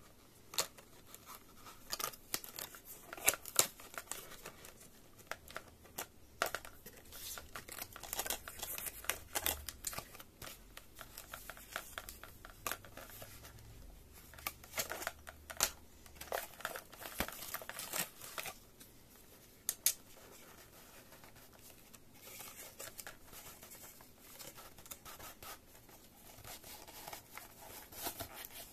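Cardboard earphone box and clear plastic packaging being opened by hand: irregular rustling, scraping and crinkling with scattered sharp clicks and taps, loudest a few seconds in and once more about twenty seconds in.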